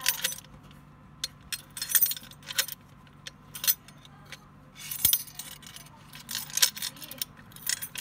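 A bunch of keys jangling and clicking against a stainless steel mortise lock as a key is turned in its cylinder, throwing the square deadbolt out. The sound comes as several short clusters of sharp metallic clicks and rattles with quiet gaps between them.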